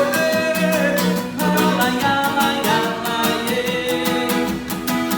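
Forró band playing live: a steady, quick percussion beat under held melody notes.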